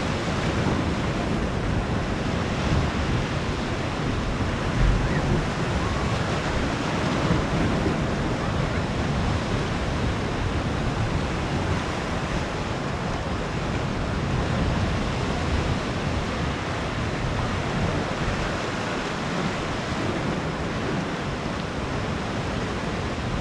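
Sea waves washing steadily onto the shore of a small cove, with wind buffeting the microphone in uneven low rumbles.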